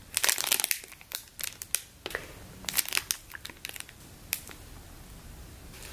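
Clear plastic packaging bag crinkling and crackling as a meat-bun squishy toy inside it is squeezed by hand: dense crackles in the first few seconds, thinning to scattered crinkles after about three seconds.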